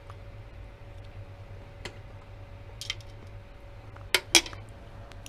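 A metal fork clinks twice in quick succession against a metal baking tray about four seconds in, after a few fainter clicks. A faint steady hum runs underneath.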